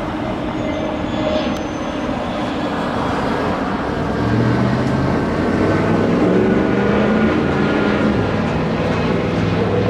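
Outdoor road traffic noise, with the low hum of a heavy engine coming in about four seconds in and growing louder before easing off.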